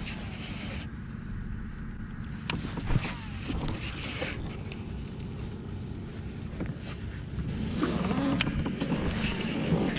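Steady low wind rumble on the microphone, with a few light clicks and taps as a baitcasting rod and reel are handled.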